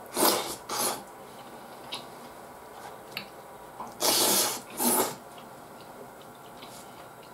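A person slurping curry rice off a spoon as each spoonful goes into the mouth: two pairs of short, hissy slurps about four seconds apart, with faint clicks of spoon and chewing between.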